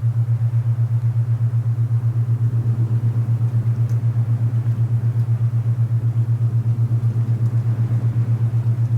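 Low steady tone beating in a rapid, even pulse, an alpha binaural beat formed by two slightly different pitches, over a soft hiss of wind.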